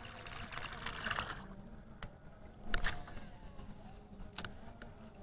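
Cast with a Shimano SLX XT low-profile baitcasting reel: a whirring hiss that cuts off about a second and a half in, then a few sharp clicks of the reel being worked, the loudest near the middle. A low steady engine hum runs underneath.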